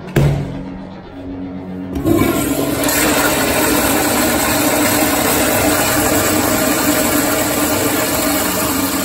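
Kohler Kingston wall-hung toilet flushing through its flushometer valve: a short knock just after the start, then from about two seconds in a loud, steady rush of water through the bowl.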